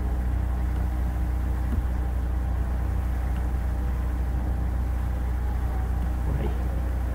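Steady low hum with a faint hiss underneath, unchanging throughout: the constant background noise of the recording setup, with no other sound on top.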